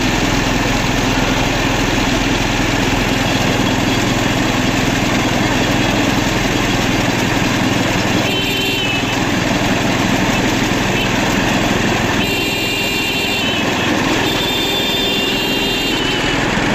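A small engine running steadily at an even speed, with a continuous low hum under a noisy drone.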